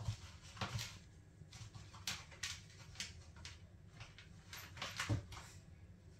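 Siamese cat scrabbling inside a plastic laundry basket: irregular scrapes, knocks and rustles as it paws and tugs at a fluffy toy bear through the basket's holes, with a louder knock about five seconds in.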